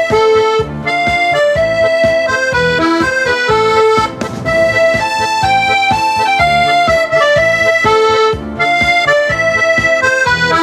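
Background music: an accordion-led tune with a steady rhythmic beat.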